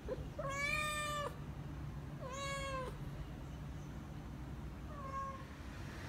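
British Shorthair cat meowing three times, a long call, a shorter one, then a fainter one near the end: a hungry cat begging for food.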